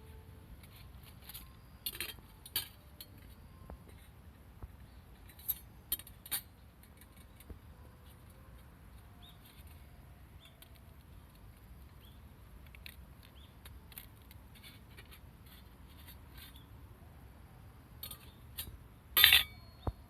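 Firewood burning in a wood stove, crackling with scattered small pops and clicks, and one louder, sharp snap near the end.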